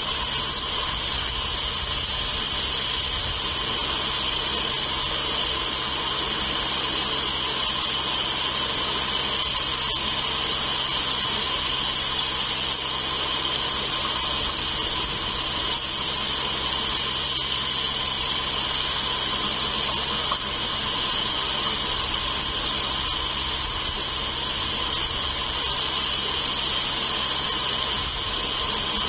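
Steady, unbroken high-pitched chorus of insects over a background hiss.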